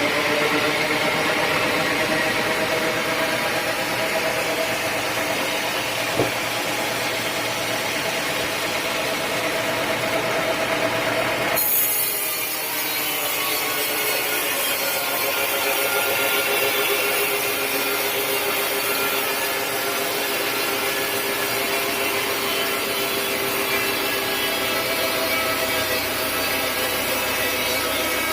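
Sawmill power saw cutting teak wood: a steady whine with a faint noisy hiss over it. The sound changes abruptly a little under halfway through, and a single click comes about six seconds in.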